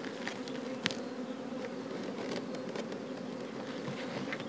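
Honey bees buzzing in flight, a steady hum, with a faint click about a second in.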